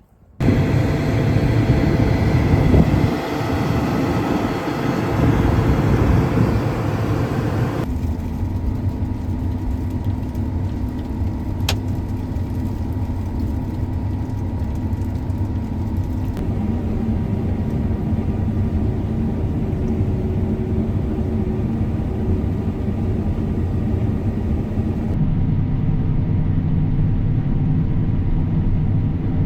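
Harvest machinery engines running steadily, a low engine rumble with a sudden change in tone about a quarter of the way in and again near the end.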